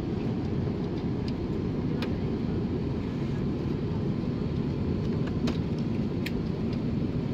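Steady low rumble of an Airbus A330-300 airliner's cabin in flight, with a few faint clicks from handling the seat-back tray table.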